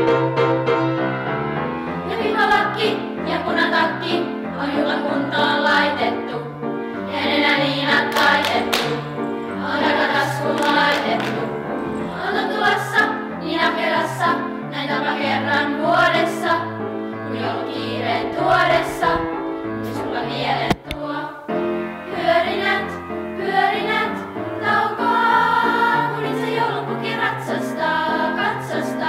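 Children's choir singing a Christmas song together over instrumental accompaniment with a steady bass line and beat.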